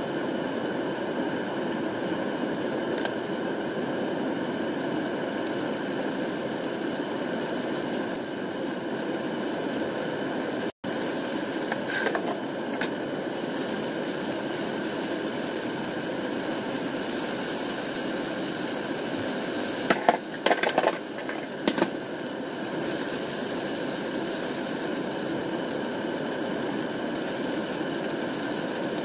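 Peach mango hand pies deep-frying in hot oil with a steady sizzle. Tongs click against the pot and pies about twelve seconds in, and a few more times around twenty to twenty-two seconds.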